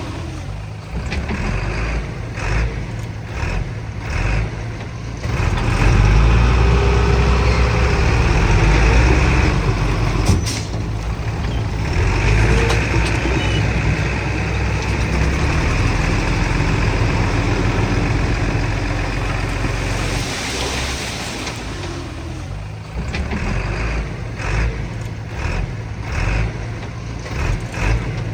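Diesel engines of earthmoving machinery (bulldozer and small dump trucks) working under load. The engine noise grows louder about five seconds in and eases back after about twenty seconds, with a single sharp knock about ten seconds in.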